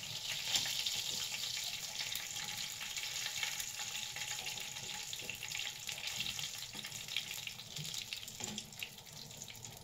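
Pieces of fried chicken sizzling and crackling in hot oil in a frying pan over a gas flame, with light clicks of metal tongs turning them. The sizzle is strongest in the first few seconds and eases toward the end.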